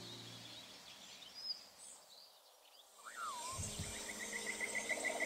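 Tropical rainforest ambience: the tail of background music fades out into a few high chirps. About three seconds in, a chorus of calling animals begins, with fast pulsing calls and a call that rises sharply and falls back.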